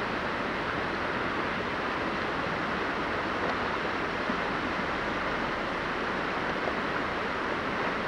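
Steady rushing of a mountain creek's running water, with a few faint ticks.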